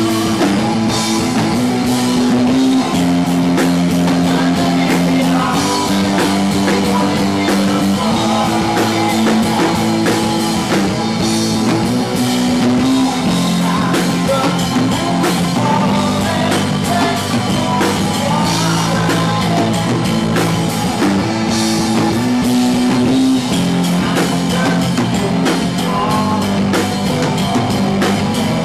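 A live rock band playing a song: acoustic guitar chords over a steady drum beat, with a voice singing.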